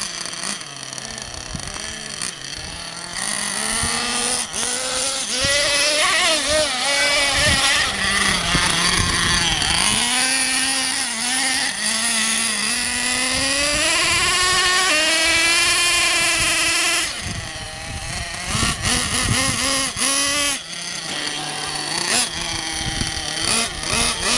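Small nitro engine of a Thunder Tiger MTA4 S50 Sledge Hammer RC monster truck revving, its high, buzzing pitch rising and falling with the throttle. It eases off briefly about two-thirds of the way through, then revs again in short blips near the end.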